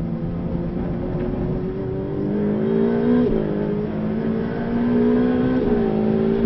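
Ferrari 488 Pista's twin-turbo V8, heard from inside the cabin, pulling hard under acceleration: the engine note climbs steadily, drops sharply at an upshift about three seconds in, climbs again and drops at a second upshift near the end.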